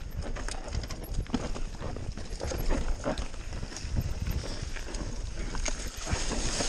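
Mountain bike riding downhill over a rough, leaf-covered trail of rocks and roots: irregular rattling and knocking from the bike and tyres over the bumps, with a low wind rumble on the microphone.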